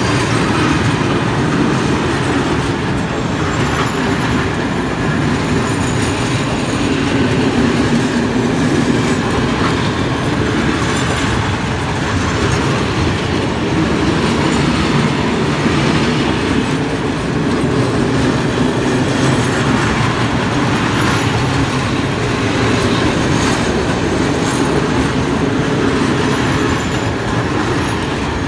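Freight train of open-top gondola coal wagons rolling slowly past: a steady rumble of steel wheels on rail with the clickety-clack of wheelsets over rail joints, and a faint high wheel squeal now and then.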